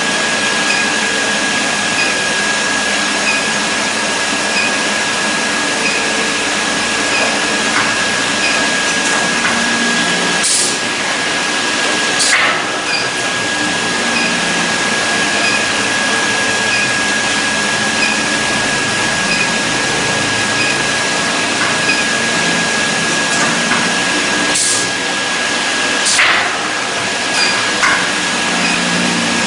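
Induction brazing rig for diamond saw-blade segments running: a steady hiss with a constant high whine, broken by a few sharp clicks.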